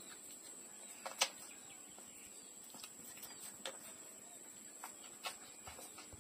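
Puppies suckling at their mother's teats: faint, short wet smacks and clicking sucks at irregular moments, the loudest a little over a second in, over a steady hiss.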